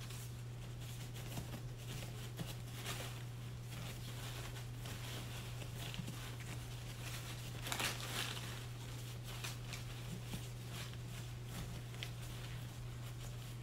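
Soft rustling and crinkling of gauze and drapes as gauze is packed by hand into a birthing manikin, with a louder rustle about eight seconds in, over a steady low hum.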